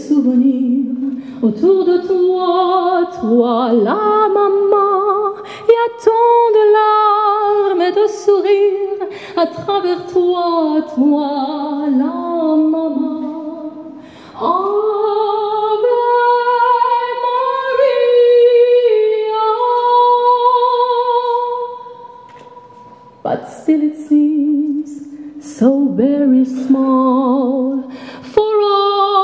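A woman singing solo through a microphone, with no instrument clearly heard, in a classically trained voice with vibrato. About halfway through she holds one long high note for several seconds, breaks off briefly, then sings on.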